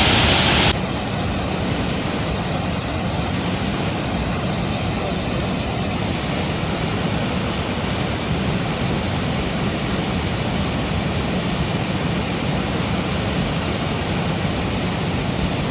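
Steady rush of a waterfall. It drops suddenly to a quieter, duller level under a second in, then stays even.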